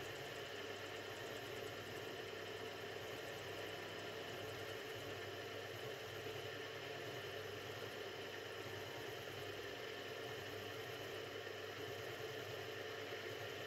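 Mini milling machine running steadily, a 7/32 in end mill turning in a plunge cut straight down into a Stuart S50 steam engine's cast iron cylinder casting to cut the steam passage recess. A steady mechanical hum with no breaks.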